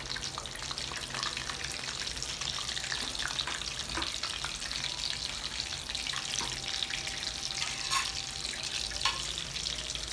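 Hot oil sizzling and crackling steadily as batter-coated stuffed green chillies deep-fry in a wok, with a few light clicks about midway and near the end.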